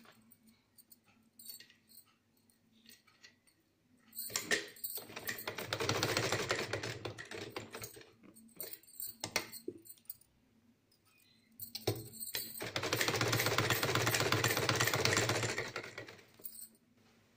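Domestic sewing machine stitching in two runs of a few seconds each, a rapid even clatter of the needle mechanism, with a few single clicks and knocks between the runs.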